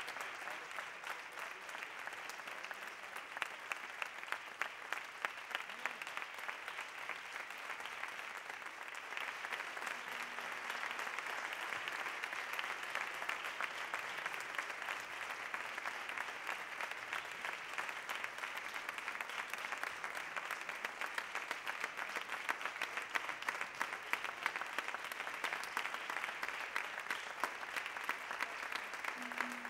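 A large audience applauding, many hands clapping in a dense, steady stream throughout.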